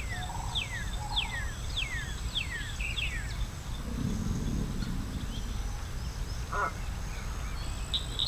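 A small bird singing a run of about seven quick whistles, each sliding down in pitch, over a steady low outdoor background; a brief low rumble follows about four seconds in.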